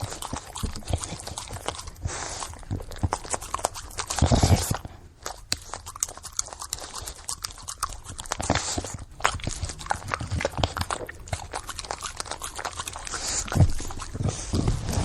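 English bulldog breathing noisily and grunting close up, with a dense run of short clicks throughout. A louder, longer stretch comes about four seconds in.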